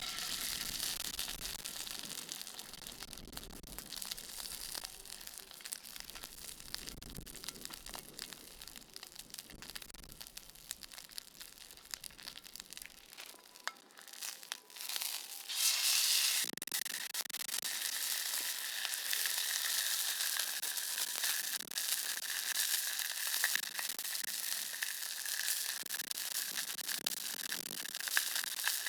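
Salted mackerel sizzling in an iron frying pan over a wood fire, the sizzle getting louder about halfway through. Wind rumbles on the microphone during the first half.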